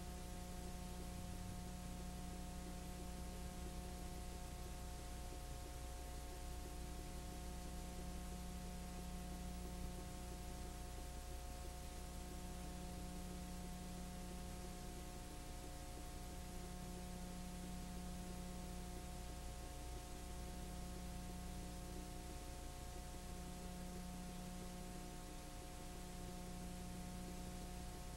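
Steady electrical hum and hiss with no other sound: the noise floor of a silent film's transfer, with a low hum that swells and fades every few seconds.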